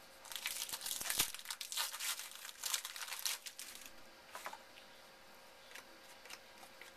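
Wrapper of a trading card pack being torn open and crinkled by hand, a dense crackling that runs for about three and a half seconds, then a few light handling clicks and quiet.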